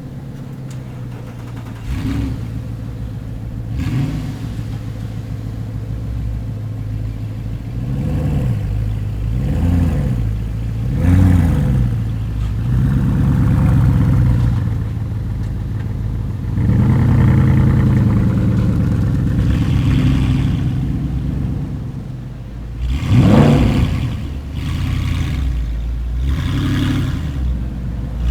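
Nissan GT-R engines revving in short blips and accelerating away, with sharp exhaust pops and crackles among the revs.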